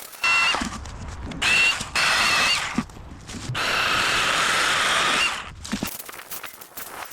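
A power garden tool's motor running in several short bursts, each with a high whine; the longest burst is in the middle.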